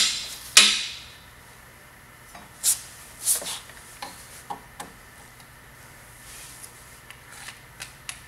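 Hand grease gun being worked on a grease nipple of a Polaris snowmobile's rear track suspension. It makes two sharp metal clacks at the very start, then softer, scattered clicks, the last few faint.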